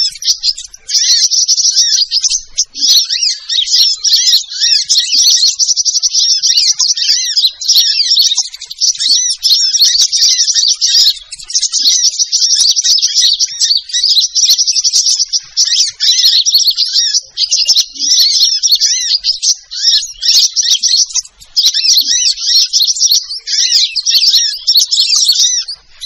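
Recorded sunbird song played as a bird-luring call: rapid, high-pitched twittering chirps that run almost without pause, broken by a few short gaps.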